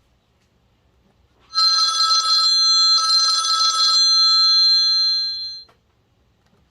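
Samsung Sunburst (SGH-A697) ringtone imitating an old telephone bell: two short trilling rings about a second and a half apart, starting about a second and a half in, the ringing then fading out over about a second and a half.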